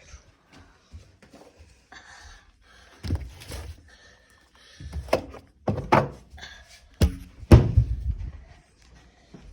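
A series of thuds and knocks as bottles and containers are put down and stowed away, the loudest a couple of seconds before the end.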